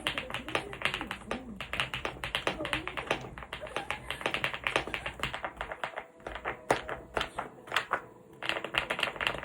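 Typing on an EPOMAKER Galaxy70 aluminium mechanical keyboard with Zebra switches: fast runs of keystrokes. They ease off about eight seconds in, then another quick burst follows.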